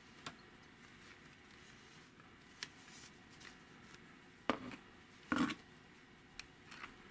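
Handling noise from lifting a fabric-dressed puppet out of a cardboard box: scattered light clicks and rustles, with two louder knocks about a second apart past the middle.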